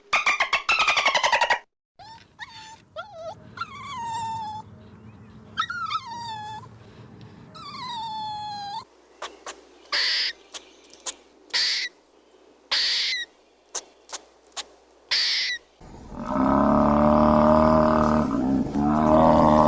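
A run of different animals calling in turn. First comes a quick pulsing call, then three falling, whistle-like cries and a string of short hissy calls. Near the end a loud, deep, low call begins.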